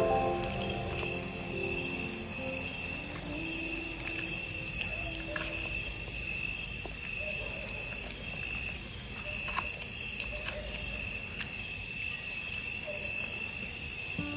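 A chorus of insects chirping: a steady high pulsing at about four pulses a second over a continuous high trill, pausing briefly twice in the middle, with a few faint clicks.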